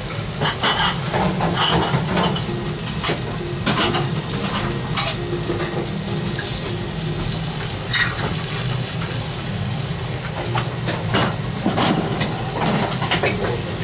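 Wagyu beef cutlet sizzling on a hot tabletop grill plate, with a steady frying hiss and scattered sharp clicks of wooden chopsticks against the plate.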